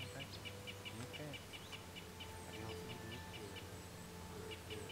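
Wild birds singing: quick runs of short, evenly spaced chirps repeating every second or so, with thin, high calls now and then, over a faint steady hum.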